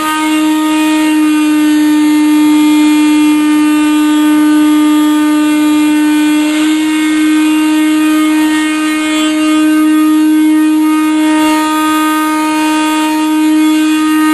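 A loud, steady, single-pitched tone with strong overtones from the boiler heating system, a racket that holds unchanged throughout, with no water coming through the system.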